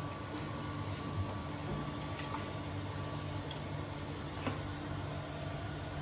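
Soft squishing and plopping of mango pulp scraped by hand from a plate into a steel jug of milk, with a few faint clicks, over a steady low hum.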